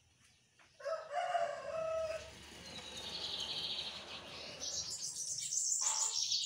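Caged lined seedeater (bigodinho) singing a long run of rapid, high, trilled notes that climb higher near the end; it is coming out of its molt and singing clean. About a second in, a rooster crows once in the background.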